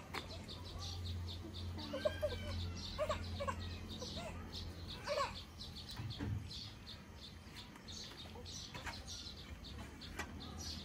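Chickens clucking in short calls, bunched a few seconds in, over small birds chirping rapidly.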